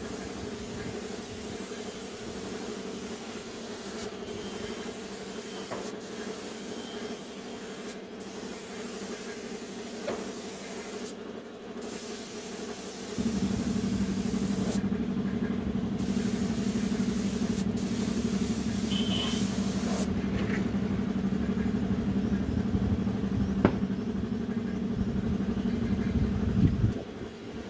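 Compressed-air paint spray gun hissing as it sprays paint, in long bursts broken by short pauses where the trigger is let go. About halfway a louder steady low hum starts and runs until it cuts off shortly before the end.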